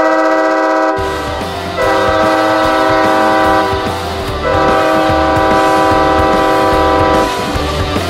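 San Diego Gulls arena goal horn blowing a chord of several steady tones in long blasts: one cuts off about a second in, then two more blasts of about two and three seconds follow. Music with a beat starts under it about a second in.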